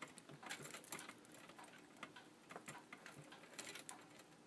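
Faint, irregular light clicks and ticks of bead dangles and their metal hooks being worked loose from a wire basket.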